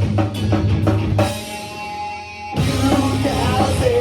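Live rock band playing an instrumental passage with drums, bass and electric guitar. About a second in, the drums and bass drop out, leaving a held guitar chord ringing, and the full band comes back in about a second and a half later.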